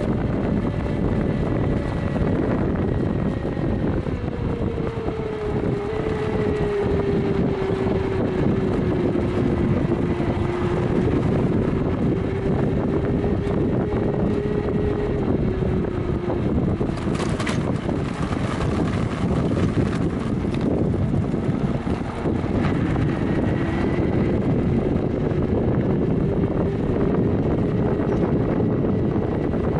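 250 W 24 V brushed DC motor of a recumbent trike's friction drive, whining steadily as it drives its screw-studded roller against the tyre, its pitch dropping a few seconds in and climbing again later, over a rushing of wind and road noise. A brief burst of noise a little past halfway.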